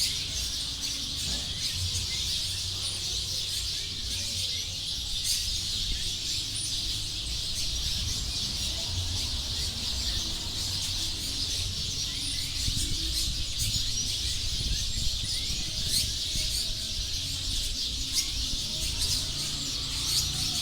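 A dense chorus of many small birds twittering and chirping together as a flock settles to roost in a tree at dusk. Frequent sharp chirps stand out from the constant twitter, over a low rumble.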